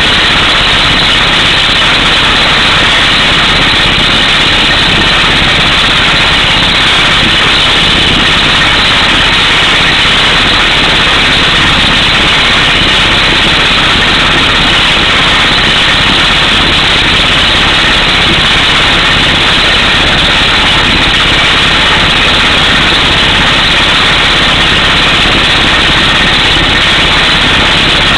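Truck-mounted air hammer drilling a 18-inch pole hole through solid rock: a loud, steady, unbroken hammering and rush of exhaust air, with the drill truck's engine running under it.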